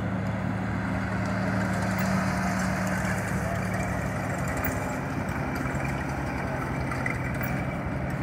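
White M2A1 half-track's straight-six petrol engine running steadily at low speed as the vehicle drives slowly past. Its pitch drops slightly about five seconds in.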